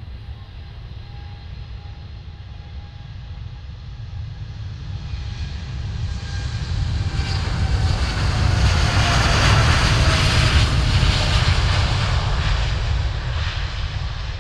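Jet airliner passing close by: the engine noise swells to a loud peak about two-thirds of the way through, then fades. A thin engine whine drops in pitch as the aircraft goes past.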